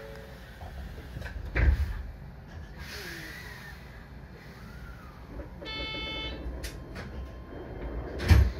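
Train's sliding passenger doors at a stop: a heavy thump, then a short buzzer tone a few seconds later, then a second heavy thump near the end, over a low steady rumble.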